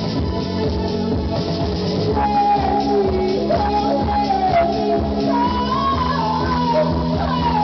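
Live rock band playing loudly: bass guitar holding low notes under regular drum hits, with a pitched lead line that comes in about two seconds in and wavers and bends.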